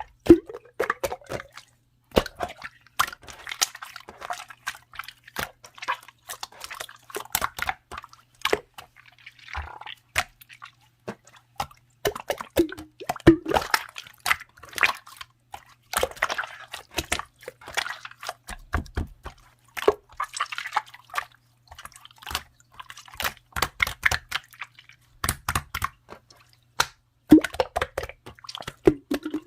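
Clear slime being squeezed and worked by hand: a dense run of sharp wet clicks, pops and squishes.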